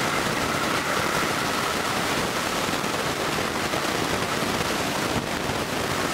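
HO-scale model train running along the track close by: a steady, even noise of metal wheels on the rails and the locomotive's small motor.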